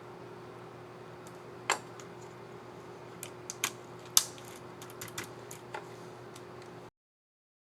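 Irregular sharp clicks of an Asus X555QA laptop keycap being pressed onto its scissor mechanism and clicked, over a faint steady hum. The loudest click comes about four seconds in, and the sound cuts off abruptly near the end.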